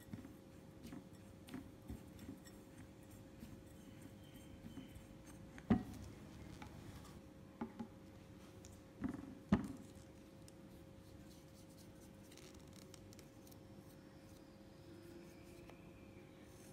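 Spatula stirring ground roasted peanuts and sugar in a glass bowl: soft, gritty scraping, with a few sharper knocks, the loudest about six and nine and a half seconds in.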